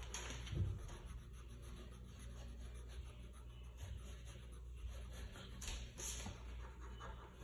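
Faint scratching of a drawing tool on paper as someone draws, with a couple of quicker, brighter strokes about six seconds in.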